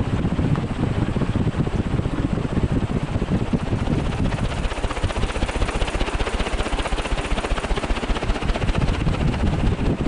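Canarm 56-inch industrial ceiling fan running at its top speed: a steady rush of moving air, with the fan's wind buffeting the microphone as a low, gusty rumble.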